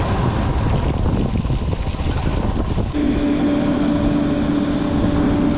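Motorcycle being ridden over a rough gravel road, its engine running under wind noise on the microphone; about three seconds in, a steady engine note at an even pitch comes in and holds.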